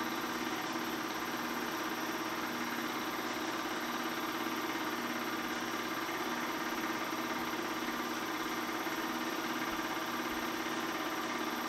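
Bell & Howell 253-A 8mm film projector running steadily: a continuous mechanical whir of motor and film transport with a faint, regular repeating pulse.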